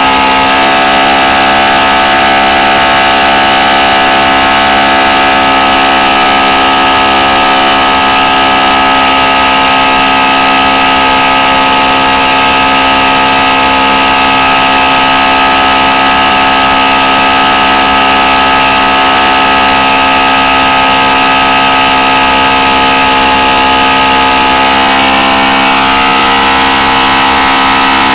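Enya 90 4C single-cylinder four-stroke glow engine running steadily at speed with no muffler, so the exhaust is open. It turns a 14x8 propeller and makes a loud, steady tone.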